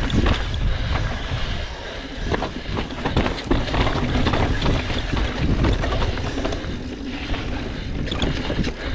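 Specialized Enduro Comp full-suspension mountain bike riding fast down a dirt and rock trail: a steady rumble of wind on the action camera's microphone, with a dense clatter of tyre knocks and chain and frame rattle over the bumps.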